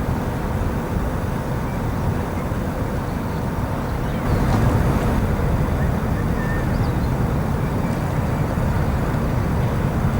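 Steady low rumble of a large car ferry's engines as the ship comes into port, growing a little louder about four seconds in.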